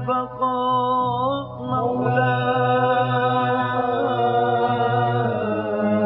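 Male voice chanting a funeral chant (tajwiq) in long, drawn-out melismatic notes that waver and slide slowly in pitch, with no clear words.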